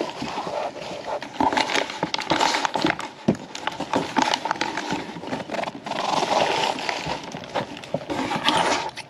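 Cardboard shipping box being scraped and rustled, with many irregular scratches and taps, as a cat is lured into it.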